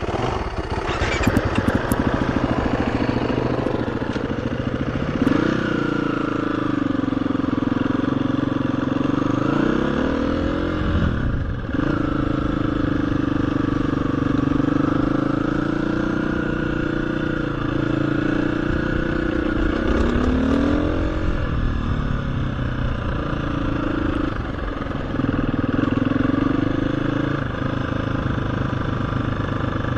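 KTM 350 EXC-F trail bike's single-cylinder four-stroke engine running under way, its revs rising and falling several times as it changes gear, with a brief drop in the engine note about a third of the way in.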